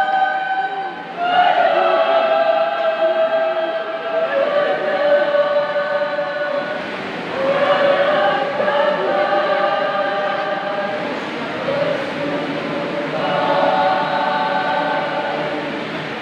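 Choir singing in phrases of long held notes, with a brief breath break about a second in.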